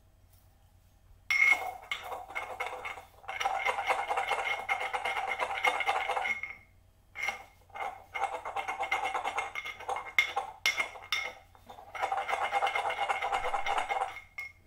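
Pestle grinding dried chickweed in a mortar: bouts of rapid scraping and clinking, with a few sharp knocks around the middle. The leaves are totally dry and crush to a fine powder.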